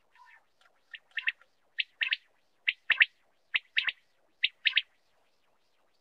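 Common quail calling: a sharp, high three-note phrase (one note, then a quick pair) repeated about five times at a steady pace, the male's 'wet-my-lips' song.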